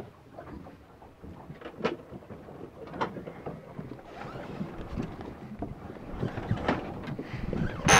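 Wind and water noise aboard a small sailboat under sail, with scattered light knocks and clicks.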